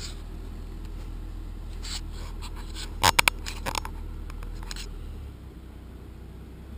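Handling noise from a pole-mounted camera being set in place: a few sharp knocks and scrapes, the loudest three close together about three seconds in, over a low steady hum.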